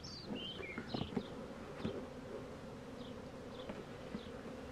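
Honey bees buzzing steadily around their hive, a colony irritated by powdered-sugar dusting. A few faint taps and a sharp click near the end come from a hive tool prying the tray out from under the screened bottom board, and short high chirps sound over the buzz.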